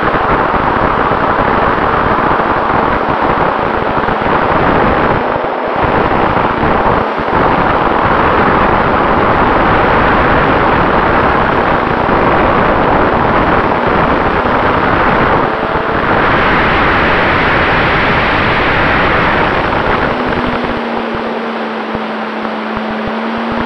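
Radio-controlled airplane in flight, heard from its onboard camera behind the spinning propeller: loud rushing wind buffets the microphone along with the steady drone of the propeller and motor. Near the end the rush eases a little and a lower steady tone comes in.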